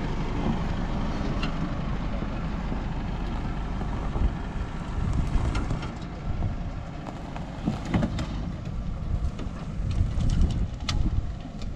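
Isuzu D-Max V-Cross pickup's diesel engine running low as the truck crawls away down a sandy, brushy slope, with wind on the microphone. A few sharp knocks and scrapes come through, the loudest about four, eight and ten to eleven seconds in.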